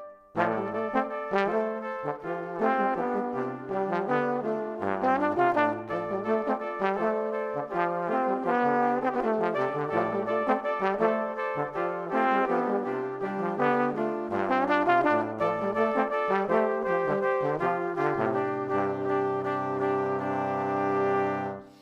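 Background music led by brass instruments, with notes changing in a steady melodic run; it fades out at the end.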